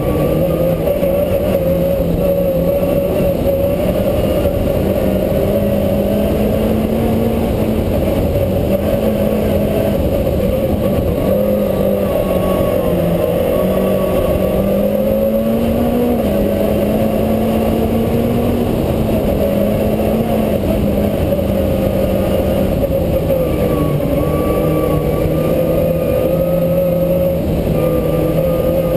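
Peugeot rally car's engine running hard on a twisty road, its note climbing and dropping in steps as it accelerates, shifts gear and lifts for the bends.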